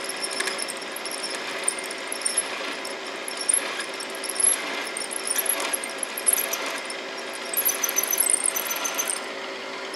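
Milling machine spindle running as a twist drill cuts down through a bolt hole in a metal casting, opening up a quarter-inch pilot hole to full size. It is a steady machine hum with cutting noise, and a high squeal from the bit comes and goes, strongest about three-quarters of the way through.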